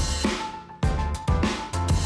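Background music with a driving drum-kit beat: bass drum, snare and bass line, with a short drop in the beat about half a second in.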